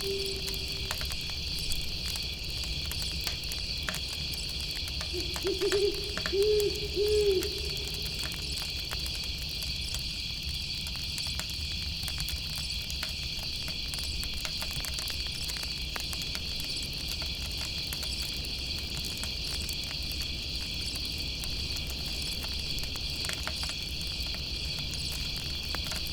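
Insects chirping in a steady, high, unbroken chorus, with an owl giving a short series of three or four hoots about five to seven seconds in. Faint campfire crackles sound throughout.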